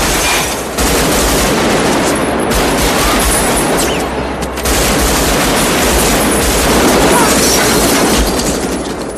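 Heavy automatic rifle fire from several guns at once, dense and continuous, easing off near the end.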